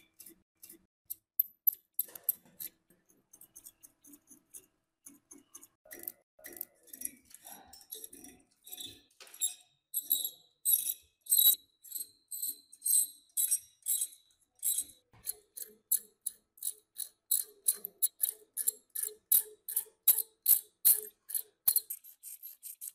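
Rhythmic scraping strokes of a hand tool on rusty metal, about two or three a second, sparse at first and steadier and louder in the second half, some strokes ringing faintly.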